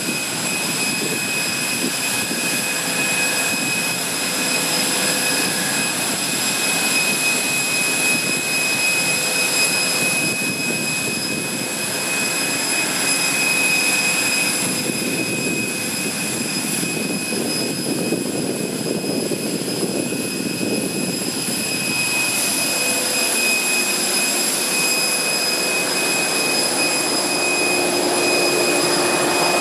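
Parked Boeing 747-400 freighter's auxiliary power unit running: a steady jet whine, several high steady tones over a continuous rush, with a lower tone joining near the end.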